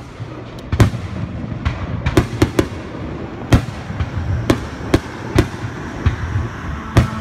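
Fireworks display: aerial shells bursting in a string of about nine sharp bangs, some close together, over a continuous low rumble.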